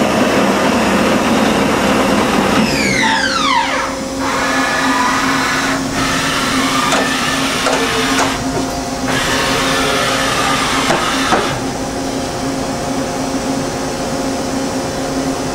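Makino MC-86 horizontal machining center's gear-driven CAT-50 spindle running at high speed, then spinning down with a falling whine about three seconds in. After that, shorter machine whirs start and stop in turns as the axes and rotary table move, over a steady hum.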